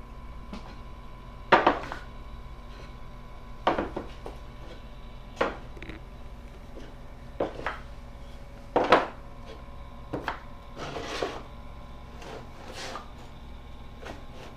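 Wooden spoke pieces of a wood-centered handcar wheel being set down and shifted on a plywood layout board: a series of separate wood-on-wood knocks, roughly one every one to two seconds, with a brief sliding scrape about eleven seconds in.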